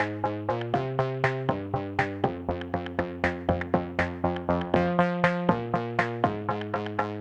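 Background electronic music: synthesizer chords changing about every second over a quick, even beat of plucked notes.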